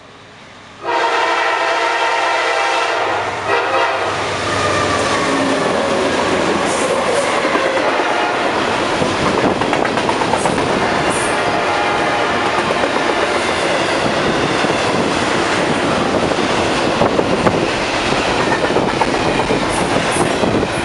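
Norfolk Southern diesel freight locomotive's air horn starting suddenly about a second in and sounding for a few seconds as the train approaches. The locomotives then pass and double-stack intermodal container well cars roll by, with steady wheel-on-rail noise and clickety-clack from the rail joints.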